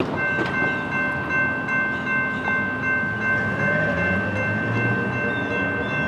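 Air horn of an approaching Norfolk Southern GE AC44C6M locomotive sounding one long, unbroken blast, over a low rumble of the train. A few bird chirps sound above it.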